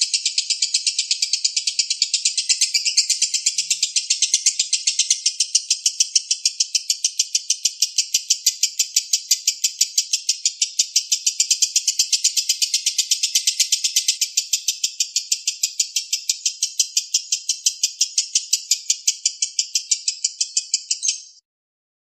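Lovebird singing a long, unbroken chattering trill (the prized 'ngekek'): high notes repeated evenly several times a second. It cuts off suddenly near the end.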